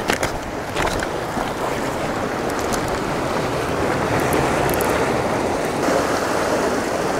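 Ocean surf washing against the rocks, a steady rushing wash with wind on the microphone, and a few sharp clicks in the first second.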